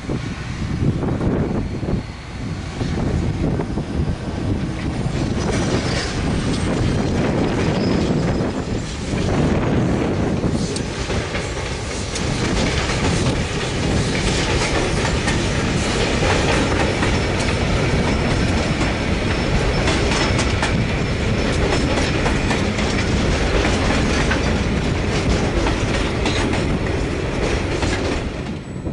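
Aurizon S-class diesel locomotive passing at the head of a bauxite train, followed by a long string of bauxite wagons rolling by with a continuous clickety-clack of wheels over the rail joints.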